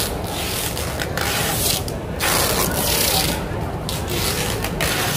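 Long knife drawn in repeated scraping strokes through a yellowfin tuna's skin and flesh, each stroke a hissy scrape with short breaks between them.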